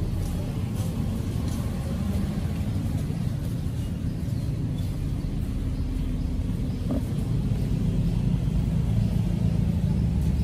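Street traffic: a steady low rumble of cars on the road, growing louder in the last couple of seconds.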